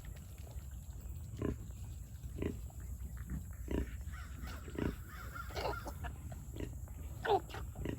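A sow and her newborn piglets grunting and squeaking in short, scattered calls, roughly one a second, over a steady low rumble.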